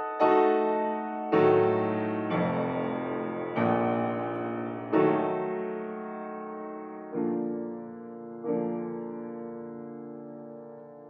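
Solo piano played slowly: seven sustained chords struck one after another, each ringing and decaying. The gaps between them widen, and the last is left to fade.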